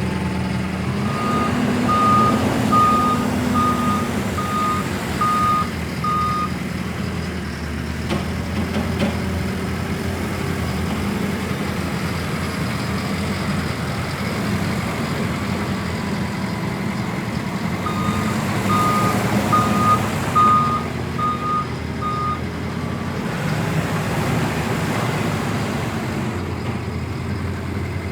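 JCB 413S wheel loader's diesel engine running steadily as the machine works, with its reversing alarm beeping in two runs: one starting about a second in and one about two-thirds of the way through.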